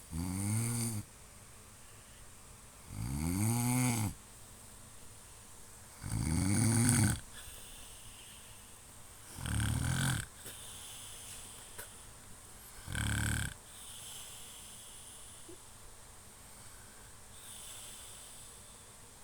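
A sleeping man snoring: five loud snores about three seconds apart, each rising and then falling in pitch, followed by softer breathing near the end.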